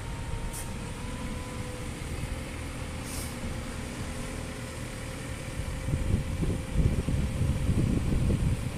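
JCB 540-170 telescopic handler's diesel engine running steadily, with a thin steady whine over the low rumble and two short hisses, about half a second and three seconds in. From about six seconds in, gusts of wind noise on the microphone grow louder over it.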